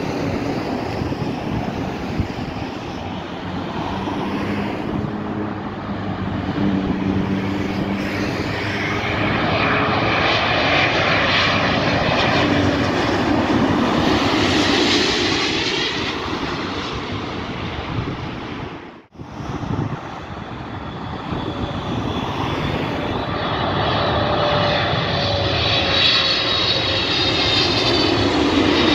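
Airbus A350-941 airliner with Rolls-Royce Trent XWB engines passing low overhead on final approach. The jet engine noise swells to a loud rush with high whining tones, peaking about halfway. After a brief dropout about two-thirds through, a second twin-engine airliner, a Boeing 777, approaches low, its engine rush and whine building toward the end.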